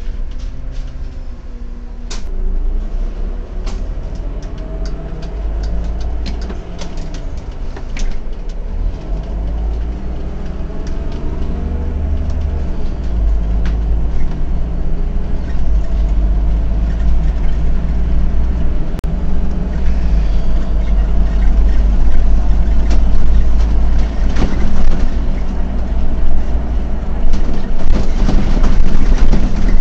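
Autosan M12LF CNG city bus driving, heard from the driver's cab: a low engine and road rumble with the engine note rising and falling, and scattered clicks and rattles. It grows louder toward the end.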